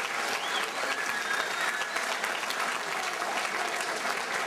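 Crowd applauding steadily, dense clapping throughout.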